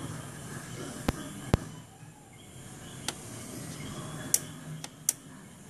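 Sharp, irregular clicking from the engine compartment of a 1992 Toyota 4Runner, about six clicks spread unevenly over a few seconds above a low steady hum. The owner says the engine shuts off once it starts doing this.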